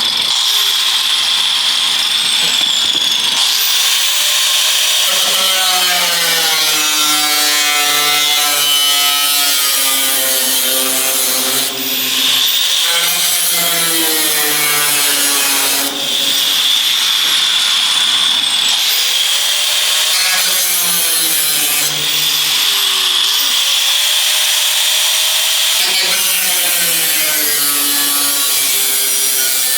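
Power tool cutting sheet metal, its pitch rising and falling as the load changes. It runs in several long stretches with brief breaks.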